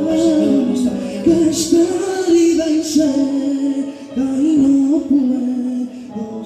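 Men singing a worship song into handheld microphones, a single melodic line that bends and slides in pitch, amplified loud in the hall.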